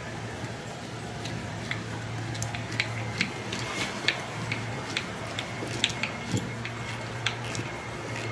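Light, irregular clicks and taps, about two a second, from handling small parts and tools while screwing a leg onto a wooden toy, over a low steady hum.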